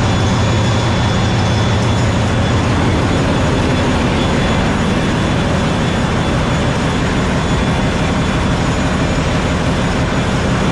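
Ship's engine-room machinery running: the marine diesel generator sets give a loud, unbroken drone with a low hum and a thin steady whine above it, filling the enclosed engine room.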